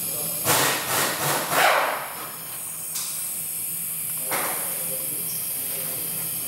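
Hand-handling noise from a brake caliper and piston being worked together over a cloth rag: a cluster of rustles and scrapes between about half a second and two seconds in, a light click near the middle, and another short rustle a little after four seconds, over a steady hiss.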